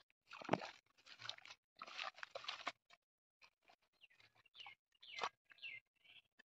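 Hands scooping and squelching through wet mud and shallow water in irregular bursts, two long ones in the first three seconds, then shorter grabs and clicks. A few small bird chirps come in the second half.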